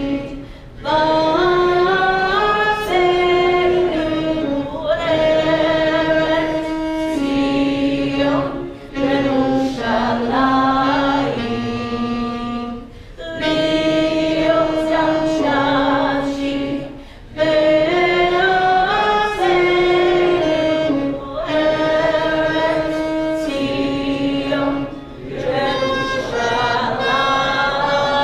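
A woman singing a national anthem unaccompanied, in slow phrases of long held notes with short pauses for breath between them.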